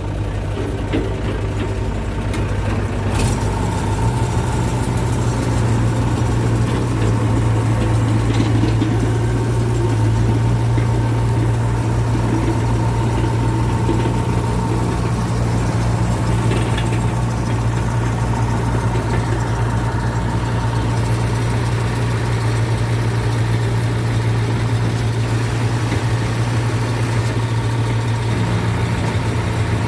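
Excavator's diesel engine running steadily, picking up a little about four seconds in, with a steady high whine over it.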